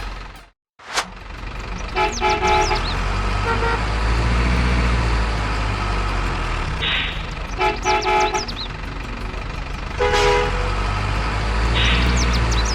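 Truck horn honking in groups of short toots, with a low engine rumble underneath that swells twice.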